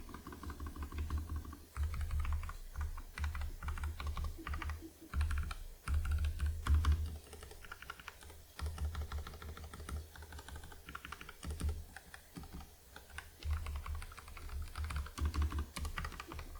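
Typing on a Nuphy Air75 mechanical keyboard with tape-modded, lubed Gateron Red linear switches: quick runs of key clacks in bursts, with short pauses between them.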